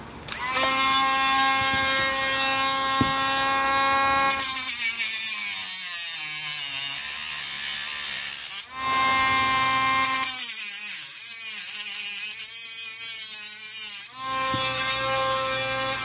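Small electric rotary tool with a cut-off wheel spinning up to a steady high whine, then cutting twice into a seized screw on a carburetor's cover: each cut lasts about four seconds, with the whine sagging under load and a gritty hiss of metal being ground. It runs free between the cuts and after them, a slot being cut in the screw head so that a flathead screwdriver can turn it.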